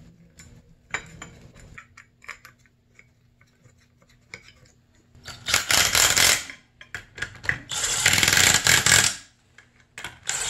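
Yellow cordless drill spinning a socket to run motor-mount bolts into an engine crankcase, after a few light metal clinks of parts being handled. It runs in two bursts: a short one about halfway through and a longer one of about a second and a half near the end.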